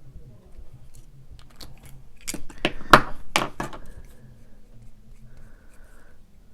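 Small plastic model parts handled on a desk: a run of about eight sharp clicks and knocks, loudest about halfway through, then faint brief scratching.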